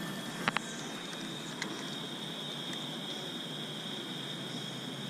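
Steady, high-pitched insect chorus, with two sharp clicks about half a second in.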